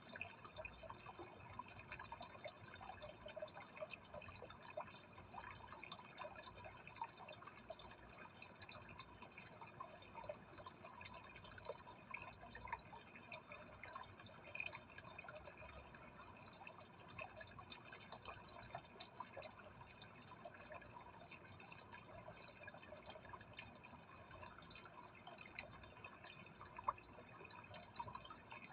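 Aquarium water trickling: a faint, steady patter of many small irregular drips and splashes.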